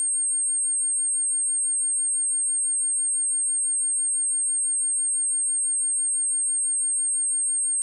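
A steady, unbroken 8547 Hz pure sine-wave test tone, high-pitched and holding one pitch and level throughout.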